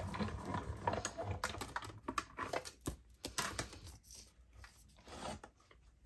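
Hand-cranked cut-and-emboss (die-cutting) machine turning, with a low rumble and rapid clicking as the plates roll through for about the first two seconds, then a few separate clicks and taps.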